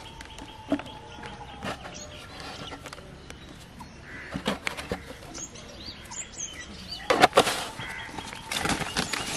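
Water pouring and splashing out of a plastic bottle into a plastic basin, with knocks and rustles as the bottle is handled, loudest twice near the end. Birds chirp faintly in the background.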